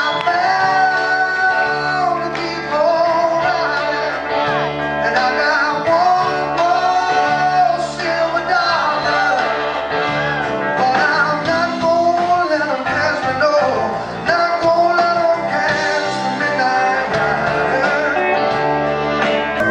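Live blues-rock band playing, led by a Les Paul-style electric guitar with bent, sliding notes over a steady band backing.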